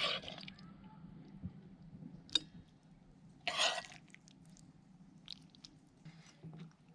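Quiet camp-cookware handling: a sharp click about two and a half seconds in and a short scrape about a second later, with a few small ticks over a faint low hum.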